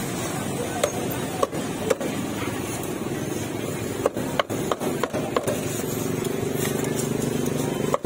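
Heavy cleaver chopping through grilled pork ribs on a round chopping block: a few single sharp chops in the first two seconds, then a quicker run of chops from about four to five and a half seconds in.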